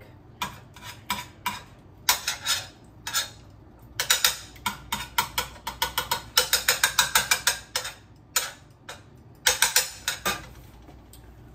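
Metal garlic press being worked over a frying pan to crush garlic: runs of quick metallic clicks and taps, in several bursts, the fastest about six a second.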